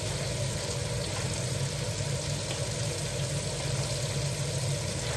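Chopped meat and tomato frying in a pan, a steady sizzle over a low continuous hum.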